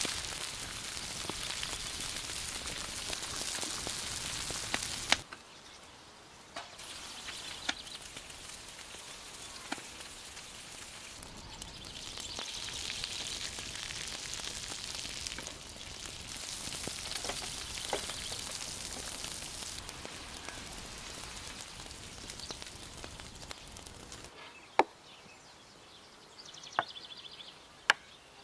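Anchovies sizzling as they fry in oil in a pan: a steady hiss that cuts in and out in several stretches. Near the end the sizzling stops and a few sharp clicks are heard.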